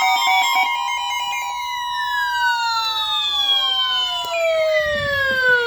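Several electronic alarm tones sounding together, steady at first, then sliding steadily down in pitch from about two seconds in, like sirens winding down.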